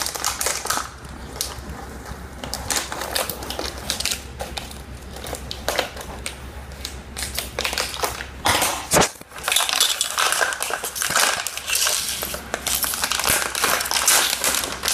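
Foil toy packet crinkling and crackling as it is cut open and handled, a dense run of small irregular crackles.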